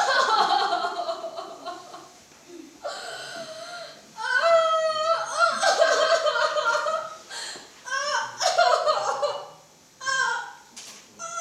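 A woman crying theatrically, in high-pitched, wavering sobs and wails that come in repeated bursts with short breaths between them.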